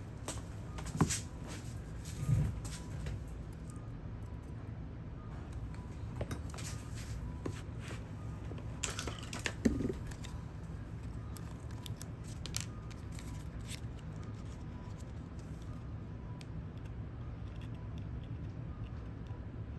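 Small tools and parts being handled on a repair bench: light clicks, taps and scrapes, with three louder knocks, over a steady low hum.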